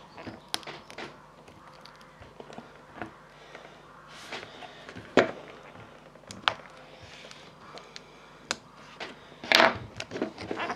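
Small flat screwdriver prying and scraping at the seam of a hard plastic wind-up torch casing: scattered sharp clicks and knocks of metal on plastic, the sharpest about five seconds in, with a louder scuffing noise near the end.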